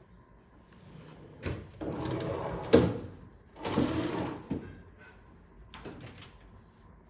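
A kitchen cabinet drawer sliding on its runners, twice, with a sharp knock as it closes at the end of the first slide.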